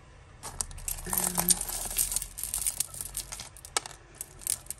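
Loose costume jewellery and beads clinking and clattering together as they are handled, a rapid irregular run of small clicks, densest through the middle.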